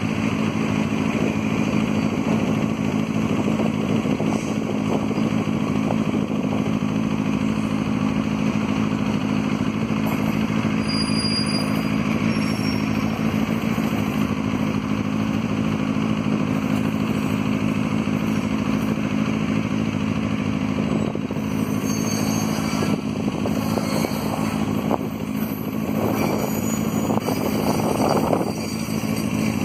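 Diesel locomotive engine running with a steady low drone as a freight train of hopper wagons rolls slowly past, with some wheel and coupling clatter in the last few seconds.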